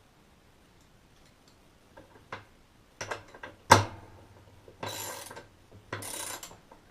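Metal clicks and a single sharp knock, then two short runs of ratchet clicking as the agitator's centre bolt is tightened.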